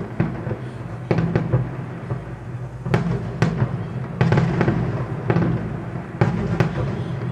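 Aerial fireworks shells bursting in the sky: a string of sharp bangs at irregular intervals, several in quick succession near the middle.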